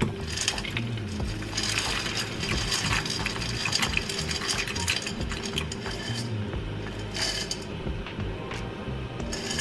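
Dry fusilli pasta poured from a glass jar into a stainless steel pot, the hard pieces clattering and clinking in. It comes in uneven runs, thickest a couple of seconds in and again briefly near the end.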